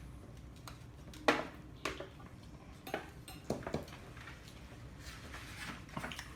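Eating utensils clicking and scraping against dishes of food: about five short, sharp knocks spread over the few seconds, the loudest about a second in.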